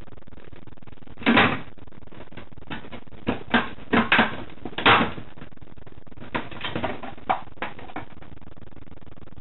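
Plastic cat flap clattering and knocking against its frame as a cat paws and pries at it, pulling the flap out of the door. The knocks come irregularly, a dozen or so, with the loudest about a second in and again about five seconds in.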